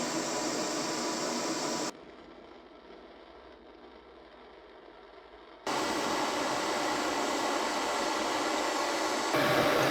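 Steady whirring hiss of a running workshop tool. It cuts off abruptly about two seconds in, leaving only quiet background, then starts again just as abruptly past the middle and grows a little louder near the end.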